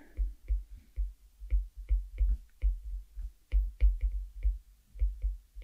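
A stylus tapping on a tablet screen while handwriting: a run of short, dull taps, about three a second.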